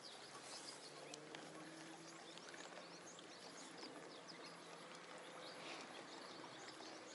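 Near silence with faint outdoor ambience: many small high chirps scattered throughout, over a faint low hum.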